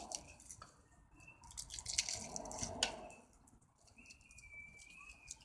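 Wire being pulled through a homemade wire stripper: scattered sharp clicks and scraping rustles, louder for a second or so in the middle, with a thin steady squeak near the end.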